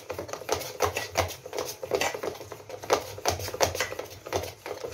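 Thick moong dal batter mixed with gram flour being beaten by hand in a steel bowl: irregular sticky slaps and taps against the bowl, several each second.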